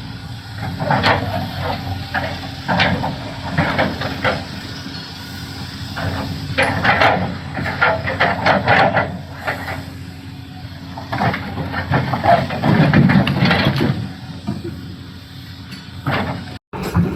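Doosan DX390 hydraulic excavator working rock: its diesel engine runs steadily under load while the bucket knocks and scrapes against boulders in irregular clusters. The audio cuts out abruptly for a moment near the end.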